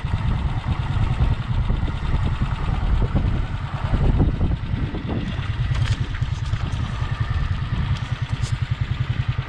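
A vehicle's engine running steadily while under way, a low pulsing rumble, with a couple of faint clicks or rattles in the second half.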